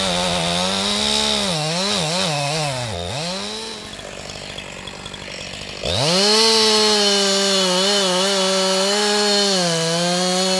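Two-stroke chainsaw running at high revs as it cuts into a felled tree trunk. About two seconds in, its pitch wavers and dips several times, and it drops to idle for about two seconds. It then revs high and steady again for about four and a half seconds before falling off at the very end.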